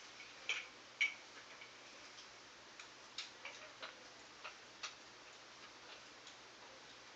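Irregular light clicks and clacks of plastic toy tools being handled, with the two sharpest clicks about half a second and a second in.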